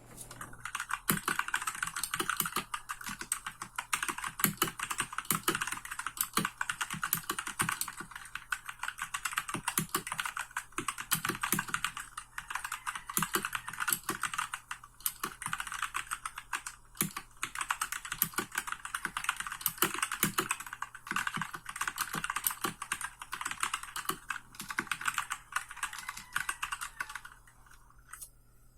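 Continuous fast typing on a Royal Kludge RK68 (RK837) 65% mechanical keyboard with brown switches: a dense, irregular run of key clicks and thocks as a sound test, stopping shortly before the end.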